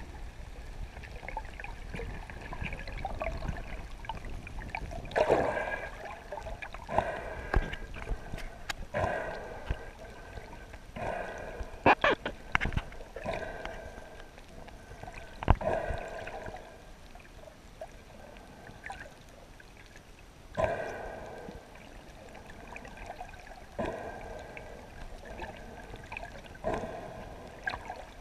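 Muffled underwater sound from a camera below the surface: gurgling bouts every few seconds, with a few sharp clicks, the loudest about twelve and fifteen seconds in.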